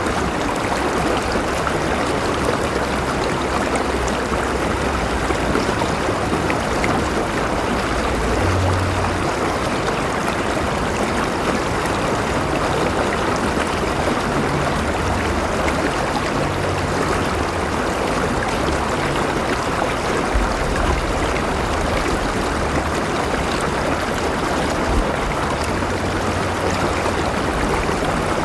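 River water flowing steadily over rocks, a continuous rushing and babbling with occasional low rumbles underneath.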